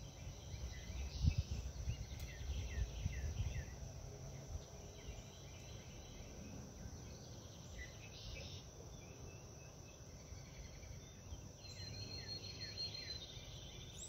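Outdoor ambience: a steady high-pitched insect drone, with scattered short bird chirps and a low rumble in the first few seconds.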